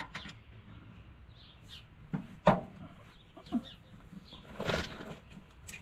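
Channel-lock pliers working a tractor's brake-shoe pin: a few scattered metallic clicks and knocks as the pin is wiggled out, the loudest about halfway through, with a short scraping rasp near the end.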